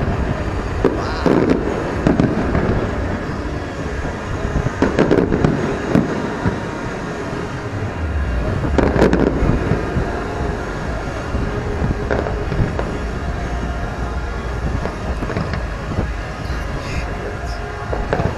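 Aerial fireworks shells bursting: irregular booms and cracks, several in quick succession around five to six seconds in and again about nine seconds in, sparser towards the end, over a continuous low rumble.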